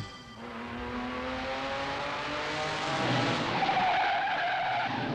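Cartoon sound effect of a semi-truck's engine revving up with rising pitch, then tyres screeching as it swerves, starting about three and a half seconds in.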